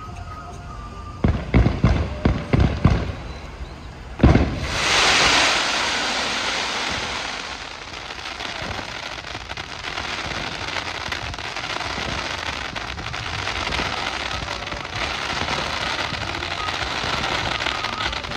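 Fireworks display: a quick run of about half a dozen sharp bangs, then one loud bang about four seconds in. After that comes a dense, steady crackling hiss of fountains and falling sparks that runs on.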